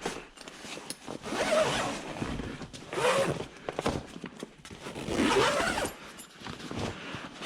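Zipper on an inflatable paddle board's carry bag being pulled closed in three long strokes.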